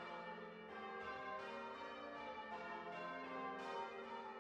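Church bells ringing a peal. A fresh bell is struck about every three quarters of a second, each note ringing on under the next.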